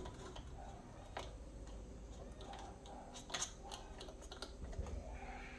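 Scattered light clicks and taps at an irregular pace, a few louder ones about a second in and past the middle, over a steady low hum.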